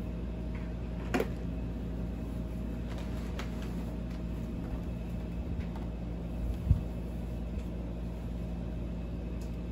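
A steady low mechanical hum in a small room, with faint handling noise as a full-face motorcycle helmet is lifted off. There is a short click about a second in and a dull thump about two-thirds of the way through.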